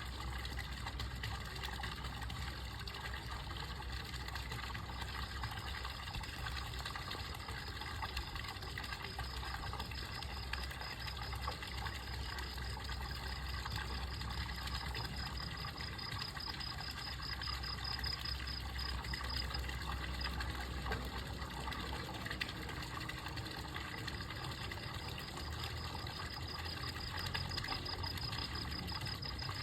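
Insect trilling steadily at a high pitch, dropping out for a few seconds past the middle and returning near the end, over a continuous low rumble.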